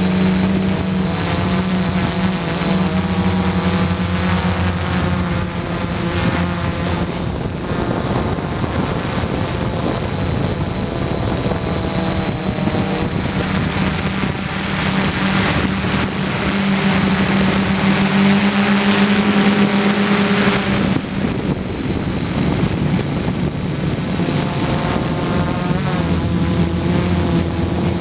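Gaui 330X quadcopter's brushless motors and propellers whining steadily, heard from the camera mounted on board. The pitch dips and rises at times as the throttle and yaw change, over a steady rush of prop wash.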